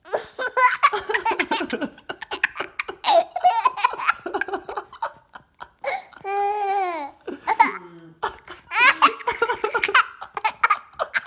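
Baby laughing in repeated bursts of giggles and belly laughs, with one longer drawn-out note about six seconds in.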